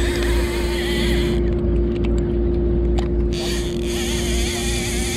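Fishing boat's engine running steadily with a constant hum and low rumble, with two spells of bright hiss over it, one at the start and one from about three seconds in.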